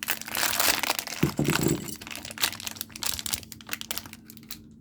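Plastic packaging of a building-brick set crinkling and rustling as it is handled, densest in the first two seconds, with scattered clicks and rustles after. A brief low hum sounds about a second in.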